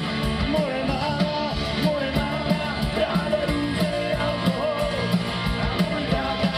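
Live rock band playing: a singer over electric guitar and drums with a steady beat.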